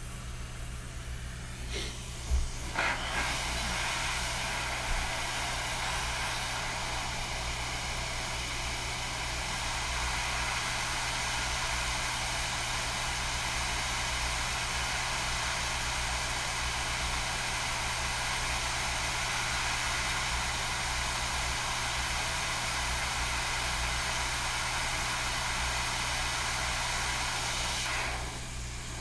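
Hot air rework station blowing a steady hiss of hot air onto a chip to melt its solder for removal, starting with a couple of clicks about three seconds in and stopping near the end, over a constant low electrical hum.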